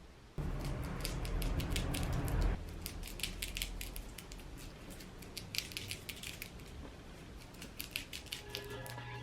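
A small power tool runs for about two seconds, then a long run of irregular scratchy clicks; background music comes in near the end.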